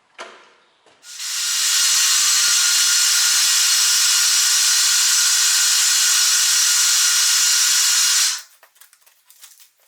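A loud, steady hiss that starts about a second in and cuts off sharply near the end, with a faint steady hum beneath it.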